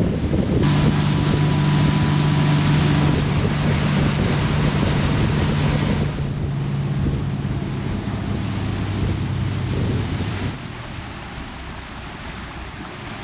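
Tour motorboat's engine running at speed, a steady low drone, with rushing water and wind buffeting the microphone. The sound changes abruptly a few times and drops quieter for the last few seconds.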